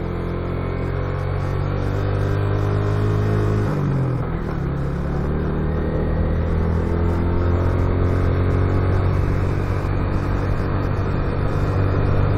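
Motorcycle engine running while riding. About four seconds in its pitch drops briefly and then picks up again, and it grows slowly louder.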